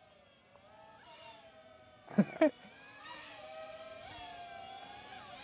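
DJI Avata 2 quadcopter's ducted propellers whining, the pitch wavering up and down as the motors change speed, growing louder after about three seconds. Two short loud sounds come just after two seconds.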